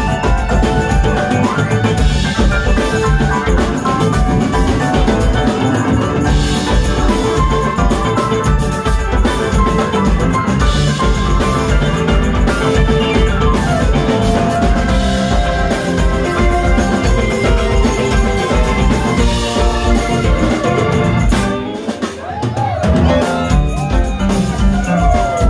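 Live funk band playing an instrumental groove on electric guitar, electric bass, keyboard and drum kit. The band drops out for about a second near the end, then comes back in.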